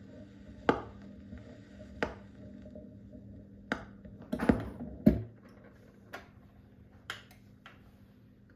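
Irregular clicks and knocks of a record player being handled after the record has finished, over a steady low hum; the loudest knocks come about five seconds in, after which the low rumble stops.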